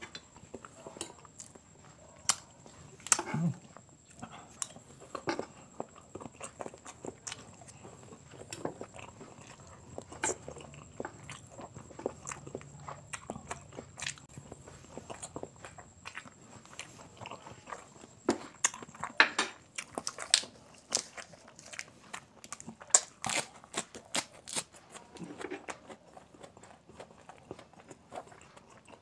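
Close-miked chewing of quail balut, with many sharp wet clicks and crunches from the mouth. The clicks grow busier about two-thirds of the way through.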